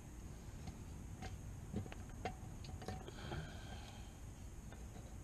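Faint, scattered metallic clicks and taps as a brake pad is worked in and out of a rear disc brake caliper by hand, over steady background hiss.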